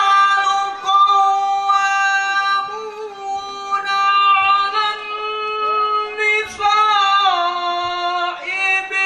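A man's voice chanting Quran recitation in the melodic tilawah style, amplified through a hand microphone. He holds long notes, ornamented with short pitch turns, and drops to a lower note about seven seconds in, followed by quicker ornamented runs near the end.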